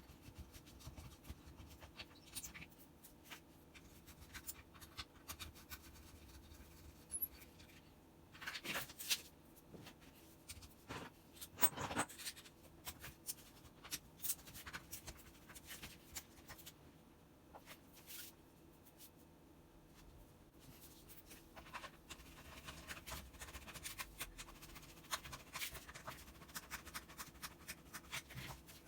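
Faint scattered clicks, taps and scraping of hands working on the hammer drill's parts during its switch replacement, with louder clatters about nine and twelve seconds in and quicker clicking near the end.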